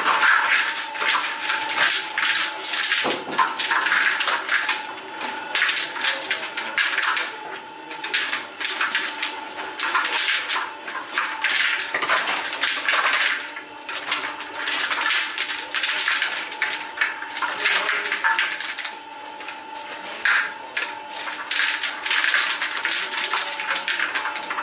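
Irregular clattering and scraping of work sounds over a steady hum.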